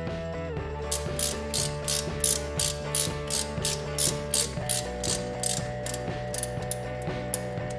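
Socket ratchet clicking at about four clicks a second as it backs out the mounting bolts of a front wheel hub assembly. The clicks begin about a second in and fade near the end. Background music plays throughout.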